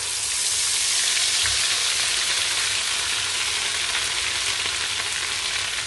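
Blended pepper, onion and ginger purée poured into hot oil in a pan, frying with a loud, steady sizzle as its liquid boils off in the oil. The sizzle swells up in the first moment of the pour.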